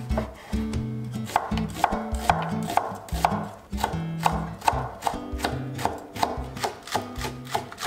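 Chef's knife slicing eggplant and then green and red chili peppers on a wooden cutting board, the blade knocking on the board about twice a second, over acoustic guitar music.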